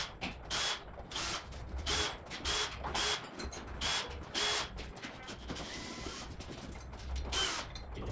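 A pneumatic tool, an air ratchet or impact wrench, working fasteners under the car in short whining bursts about two a second. The bursts pause for a couple of seconds, then come once more near the end.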